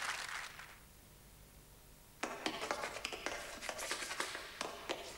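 Audience applause dying away within the first second, followed by near silence. About two seconds in, an irregular run of crackling clicks starts and keeps going.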